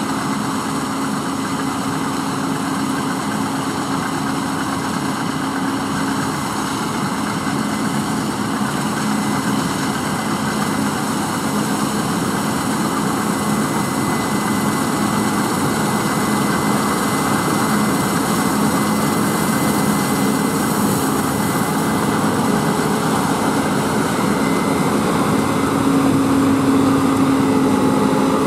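Case IH 9230 Axial-Flow combine harvester cutting oilseed rape: a steady drone of diesel engine and threshing machinery with a thin high whine, slowly getting louder as the machine comes closer.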